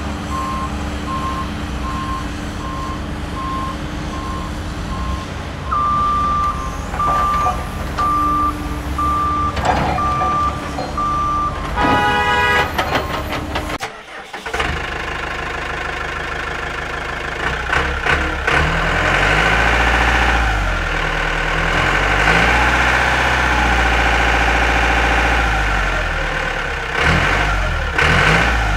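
Heavy-vehicle engine sound effects: a reversing alarm beeps steadily over an engine rumble, the beeps getting louder and slightly higher about six seconds in. After a brief break a little past halfway, an engine runs louder, its pitch rising and falling as it revs.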